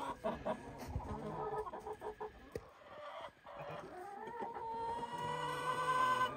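Chickens clucking in short, choppy calls, then one long drawn-out call that rises and then holds its pitch over the last two seconds or so.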